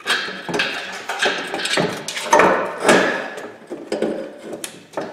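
Metal clanking and knocking under the car as the exhaust pipe is pushed aside, with several sharp knocks, the loudest a little over two and about three seconds in.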